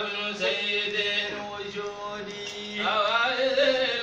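Voices chanting Sufi dhikr, holding long, wavering notes, growing louder near the end.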